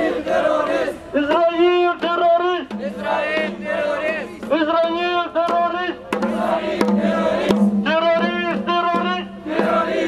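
A man's voice chanting or singing a short melodic phrase over and over, with brief gaps between phrases, over a steady low hum.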